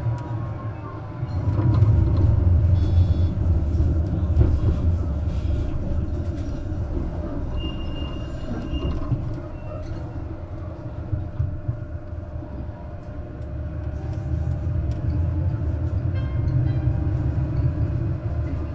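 Duewag M6D articulated tram running: a steady rumble of wheels and traction equipment that swells and eases. A faint motor whine rises in pitch over the last few seconds, and a short high tone sounds about eight seconds in.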